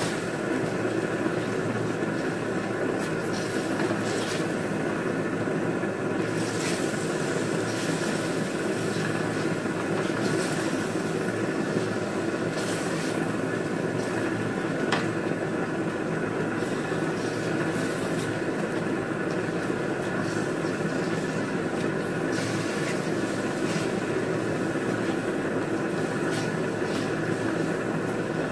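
Beef cubes frying in a steel wok, with a spatula scraping and tapping the wok in scattered clicks, over a steady drone.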